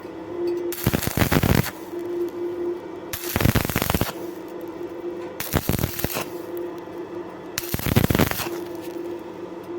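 Stick-welding arc crackling in four short bursts about two seconds apart, the electrode's arc struck and broken again and again, with a quieter crackle in between.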